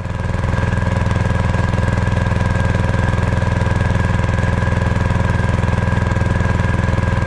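Air-cooled BAWAD hybrid outboard motor running steadily at trolling speed: an even, fast pulsing beat with a constant whine above it.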